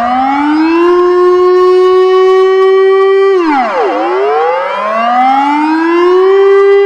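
Civil defence warning siren wailing: its pitch rises and holds, falls away about three and a half seconds in, then rises and holds again.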